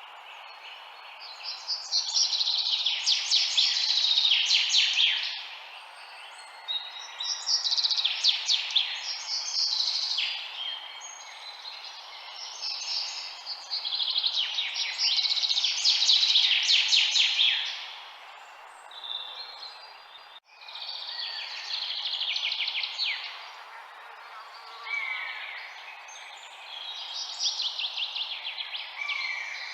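Birds chirping in bursts of fast, dense trills lasting a few seconds each, over a steady background hiss. The sound cuts out briefly about two-thirds of the way through.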